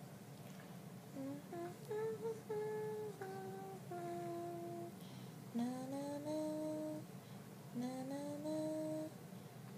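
A voice humming a simple tune: a run of short held notes that climb and then step down, followed by two long notes that slide upward and hold.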